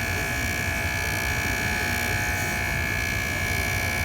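JOOLTOOL bench polishing tool running with a steady high whine while a fine abrasive scratch-eraser pad is worked against a watch part to take out a scratch.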